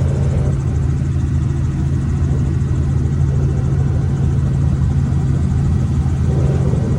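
Robinson helicopter's piston engine and rotor running steadily, a loud, even low hum with no change in pitch.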